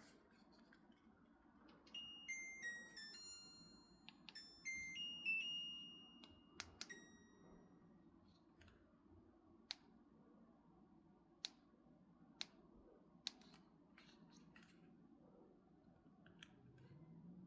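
LG Dual Cool wall-mounted air conditioner playing its electronic power-on chime, a short melody of stepped beeps, followed by a series of sharp single clicks over a faint steady hum.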